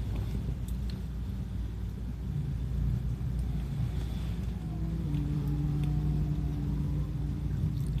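Low rumble of a train running on the rails, heard from inside the car. A steady low hum joins in about five seconds in and fades near the end.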